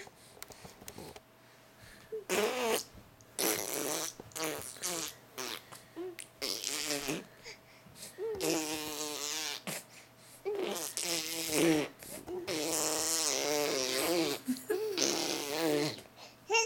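A baby blowing raspberries, making fart noises with his lips and voice, in a string of short and longer bursts that begin about two seconds in.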